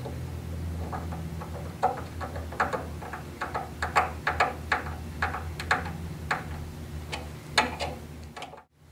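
A rubber bumper being screwed into a pre-drilled hole in a telescope base's wooden side panel, giving a run of light, irregular clicks from the tool and parts, about two a second, over a steady low hum.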